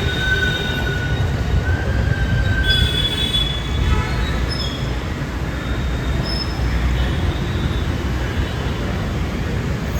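Hyderabad Metro train running with a steady low rumble and thin, high wheel squeal. The squeal is held for the first three seconds or so, then breaks into short scattered squeaks.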